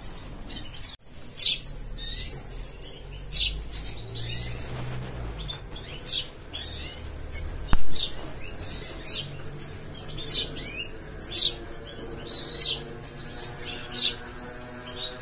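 Young sparrow chirping: short, high, single chirps repeated roughly once a second.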